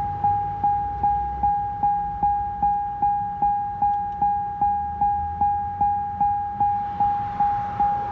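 Chevrolet Tahoe's door-open warning chime dinging steadily, one single-pitched ding about two and a half times a second.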